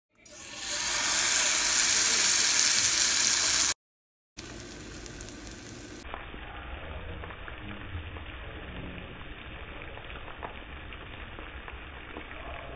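Oil sizzling in a frying pan as an oats chilla batter cooks. It is loud and even for the first few seconds, then after a brief gap it turns to a much quieter sizzle with scattered small pops.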